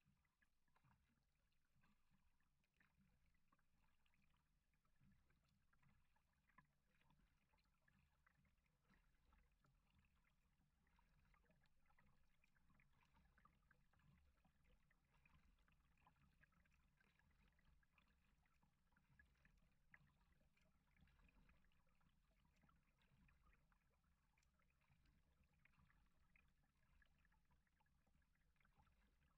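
Barely audible water lapping and ticking against a kayak hull on calm water, close to silence, with a couple of slightly louder faint clicks.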